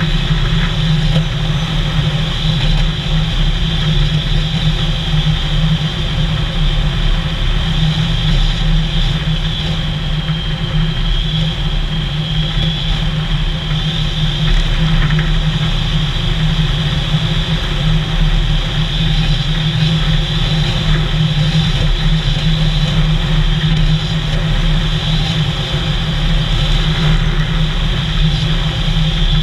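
Engine and road noise of a vehicle driving steadily along: a constant low drone with a steady high hiss over it.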